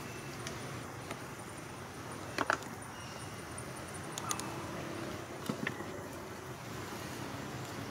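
Steady outdoor background hiss with a few faint, sharp clicks and taps, two of them close together about two and a half seconds in.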